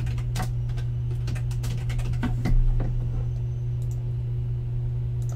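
Typing on a computer keyboard: a scatter of separate keystroke clicks at an uneven pace, fewer after about three seconds, over a steady low electrical hum.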